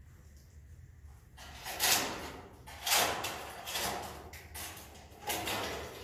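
A long-handled scraper working edible swiftlet nests off wooden roosting planks: a series of short scraping strokes, roughly one a second, starting about a second and a half in.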